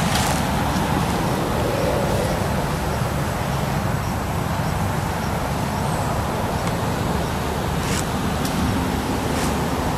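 Steady low rumbling background noise, with a few faint sharp clicks in the later part.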